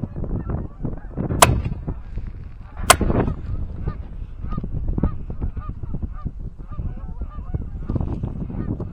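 Two shotgun shots about a second and a half apart, amid a flock of Canada geese honking continuously, with wind rumbling on the microphone.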